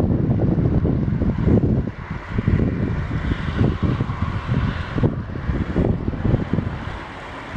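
Diesel engine exhaust of a 1972 inland motor tank ship running steadily, under heavy wind buffeting on the microphone.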